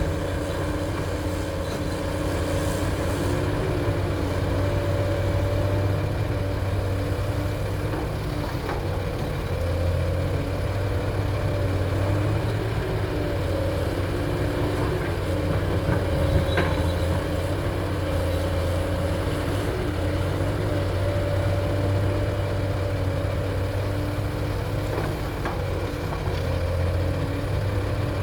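Excavator's diesel engine running steadily at an even pitch, with a few faint clicks now and then.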